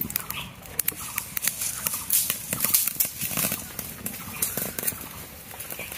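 Open fire of dry straw and thin sticks crackling and snapping irregularly beneath a row of clay cooking pots, kept at high heat.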